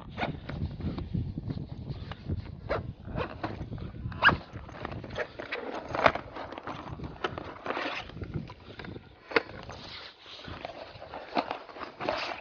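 Hands rummaging in a nylon backpack: fabric rustling, with irregular sharp clicks and knocks from straps, buckles and a plastic case being handled.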